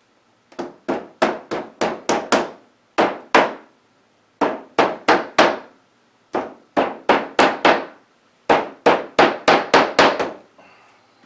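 A hammer tapping repeatedly on a wooden picture frame, in quick runs of several blows about four or five a second, with short pauses between the runs.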